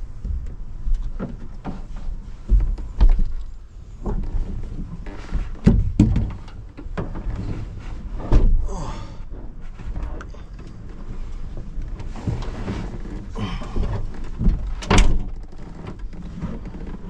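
Scattered knocks and thumps from someone shifting about inside a pickup-truck topper shell and handling its side sliding window, over a steady low rumble of wind on the microphone.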